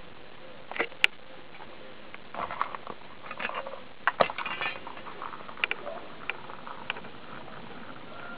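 Irregular sharp clicks and short scraping rustles on concrete, from a stick prodding blue crabs and their claws and legs scrabbling on the ground. The loudest clicks come about four seconds in, with single clicks spaced out after.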